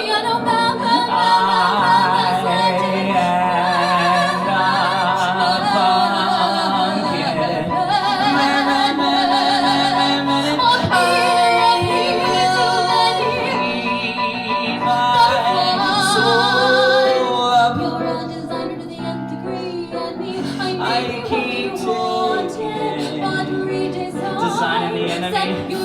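Music: a woman singing long notes with vibrato over sustained accompaniment chords.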